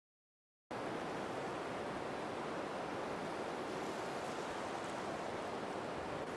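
Steady rush of ocean surf, cutting in abruptly under a second in after a moment of dead silence.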